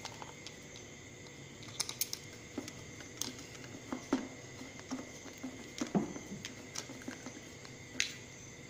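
Irregular light clicks and taps of a screwdriver and small metal parts as a power transistor is screwed onto a finned aluminium heatsink by hand.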